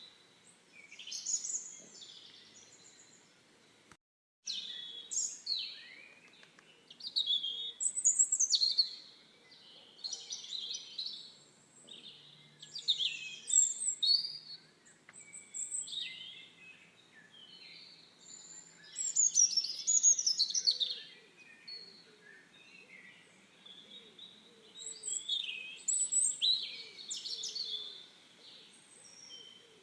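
Songbirds chirping and trilling in short, high phrases every second or two, with a brief drop-out to silence about four seconds in.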